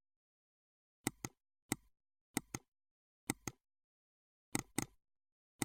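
Short sharp clicks from a computer input device, about six in all at irregular intervals of roughly half a second to a second. Most come as a quick press-and-release pair, with dead silence between them.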